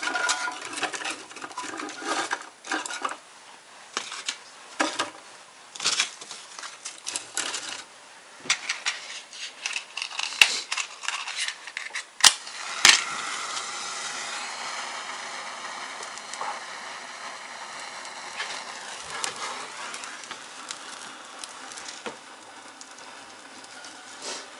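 Kindling being handled and fed into a wood stove, with irregular rustling and clicking. About twelve seconds in there is a sharp strike, then a steady hiss that slowly fades as the fire catches.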